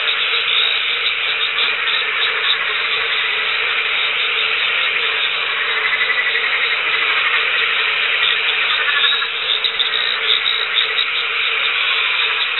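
A dense chorus of many frogs calling at once: a continuous din of overlapping rapid pulsed calls with a steady lower hum beneath. It is the frog chorus that the first wet-season rains set off.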